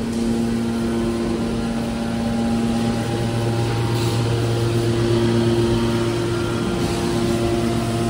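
Hydraulic metal baler's power unit, its electric motors and hydraulic pump running with a steady machine hum made of several held tones over a noisy drone. The tones shift about three seconds in, the lowest one growing stronger.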